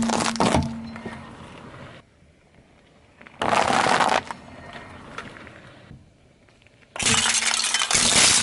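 A car tyre rolling slowly over things on asphalt and crushing them, in three separate bursts. First parsnips snap and crack, fading over a couple of seconds. A pile of peanuts crunches briefly about three and a half seconds in, and from about seven seconds in stacked clear plastic cups shatter with a loud, crackling crunch.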